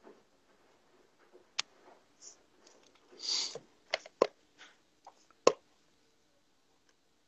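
A few sharp, scattered clicks and one short breathy hiss, small mouth and handling noises close to a phone microphone, over faint room tone.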